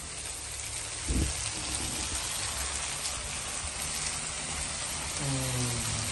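Paella pan of rice sizzling and crackling on the heat as the socarrat crust forms on the bottom. There is a single thump about a second in.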